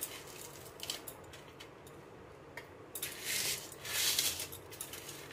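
Pieces of edible gum (gond) being crushed and rubbed by hand on a stainless-steel plate: faint small clicks of hard bits against the metal, then scratchy rustling bursts about three and four seconds in.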